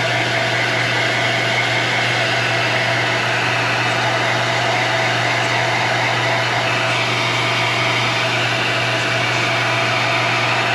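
Heat gun running steadily, blowing hot air with a constant motor hum to heat-set freshly airbrushed paint on a lure.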